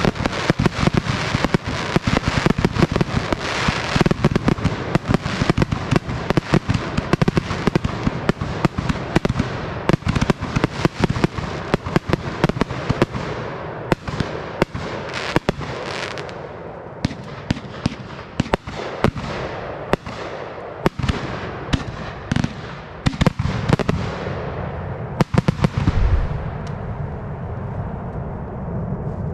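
Aerial fireworks going off in a dense, rapid barrage of bangs and crackle, thinning to scattered bangs about halfway through, with a last cluster of bangs near the end before the rumble dies away.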